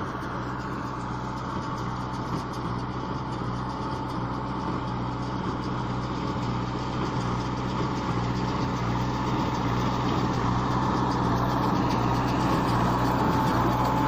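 Harvest machine's engine running steadily with a thin, constant whine, growing gradually louder as it comes closer.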